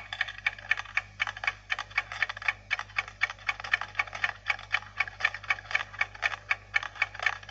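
Vending machine's coin changer paying out change after the change button is pressed: a fast, even run of metallic clinks, about four to five a second, as coins drop one after another into the return cup.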